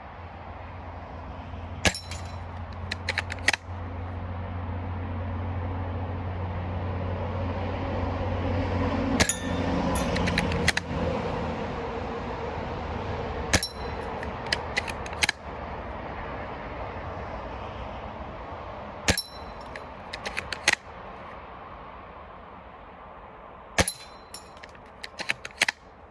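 Cyma VSR-10 spring bolt-action airsoft sniper rifle fired five times, one shot about every five seconds. Each shot is followed about a second and a half later by a quick cluster of clicks and clinks. A low hum rises and fades in the background over the first ten seconds.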